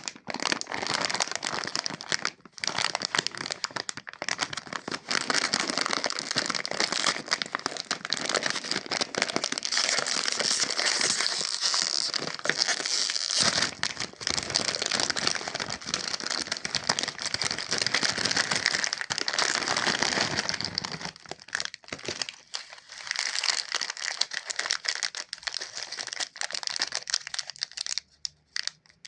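Plastic candy wrappers being crinkled and unwrapped by hand: a dense, continuous crackling with a few brief pauses.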